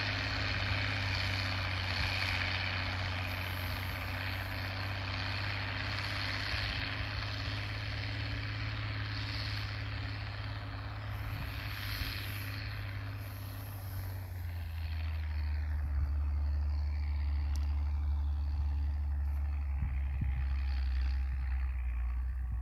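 IMT 5136 turbo tractor's diesel engine running steadily while it pulls a disc harrow. About two-thirds of the way through, the engine note drops to a lower pitch.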